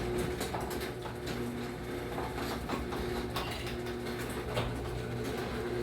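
Chain-drive garage door opener running to close the door: a steady motor hum with the chain and door rattling and clicking along.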